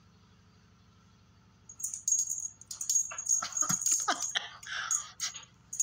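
Jingling and rattling of a feather wand cat toy being waved and batted, starting about two seconds in with quick clicks and a high ringing jingle, over a low hum.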